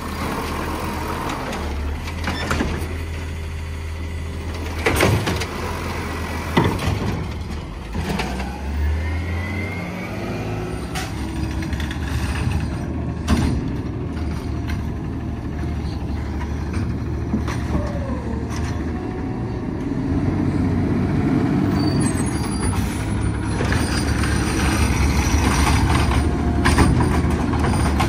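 Automated side-loader garbage trucks at work: a natural-gas truck's engine hums steadily while its hydraulic arm lifts and tips a wheeled trash cart, with several sharp knocks and clatters as the cart is shaken out and set down. Then a second side-loader truck drives up, its engine growing louder as it pulls in and stops.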